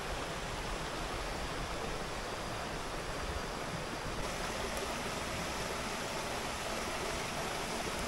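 Steady rushing of a waterfall's flowing water, an even hiss with no breaks.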